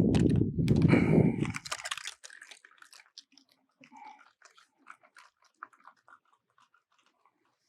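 Hands working a stainless-wire clamp and a Clamptite clamp-making tool on a garden hose fitting: a close crunching, rubbing noise for about two seconds, then faint scattered clicks and ticks.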